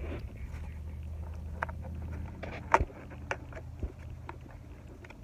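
Scattered light clicks and taps of hands fitting a new air filter into its housing on a lawn mower engine, the sharpest a little under three seconds in, over a low steady hum.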